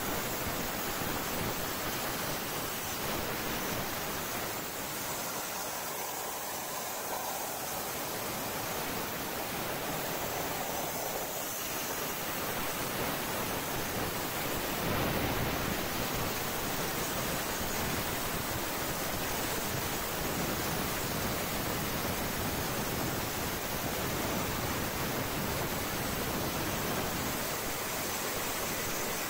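Plasma torch cutting half-inch AR500 steel plate, a steady hiss of the arc and its air jet that keeps on without a break.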